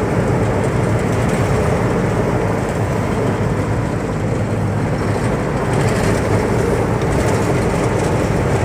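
Rice combine harvester running steadily, heard from on board: a constant, loud engine and machinery drone.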